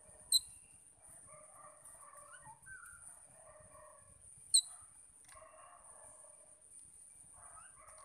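Birds chattering and calling at mid pitch in scattered bouts, with two short, sharp high chirps, one just after the start and one about halfway through.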